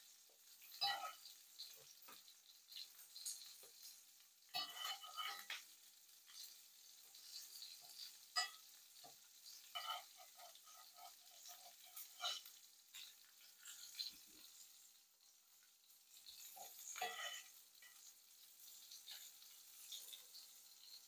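Faint kitchen sounds while pancake batter is made: a utensil stirring and clinking irregularly against a bowl, over a light steady sizzle from a hot pan.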